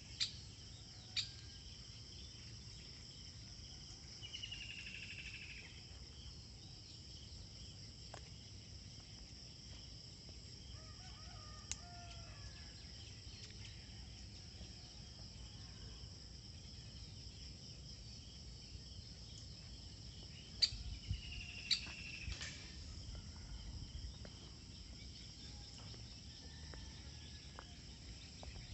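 Steady high chirring of crickets, with two drawn-out, slightly falling bird calls and a few sharp clicks.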